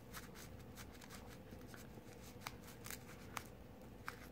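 Faint rubbing and scratching of paper towel, worked with a plastic toothpick, against the metal handle liner of a disassembled folding knife. A few light clicks, the sharpest about two and a half and three and a half seconds in.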